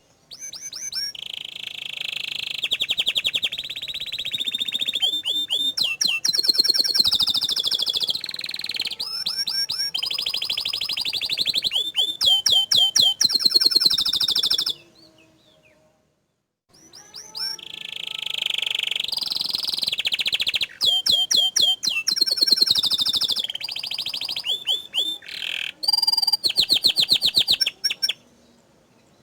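Domestic canary singing long rolling song phrases of rapid trills, repeated chips and quick whistled sweeps. There are two long unbroken phrases, with a pause of about two seconds in the middle.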